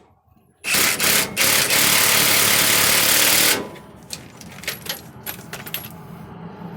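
Impact wrench running in one loud burst of about three seconds, starting just under a second in and stopping sharply, as it runs down the last nut of a truck's rear shock absorber mount. After it stops come a few light metallic clicks.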